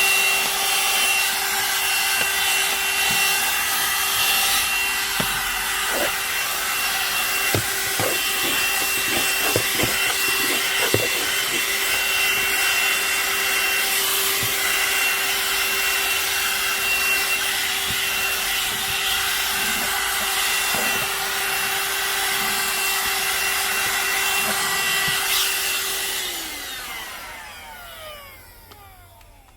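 VacLife VL189 cordless handheld vacuum running with a steady motor hum and high whine over a rush of air, and a scatter of small ticks and knocks for a few seconds early on. Near the end it is switched off and the motor spins down, its pitch sliding lower as the sound fades away.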